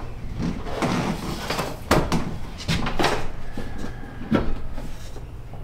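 Irregular knocks and thumps, about half a dozen, from handling and striking the box truck's wall panels during the door cut-out work.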